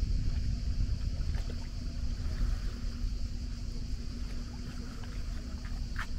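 Seaside ambience: a steady low rumble with a faint motor hum in the middle, and a short chirp near the end.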